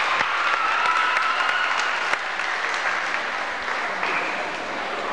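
Audience applauding, the clapping easing off slightly toward the end.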